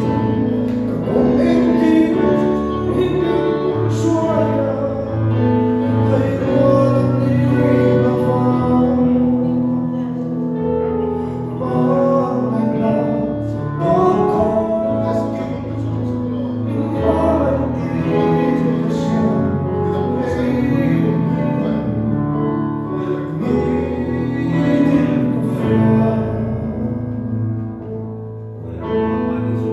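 Two singers singing a song with instrumental accompaniment over a sound system during a sound check.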